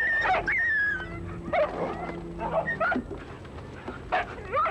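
Greenland sled dogs (huskies) squabbling over meat, whining and yelping. A long, high, wavering whine comes in the first second, followed by a string of shorter yelps.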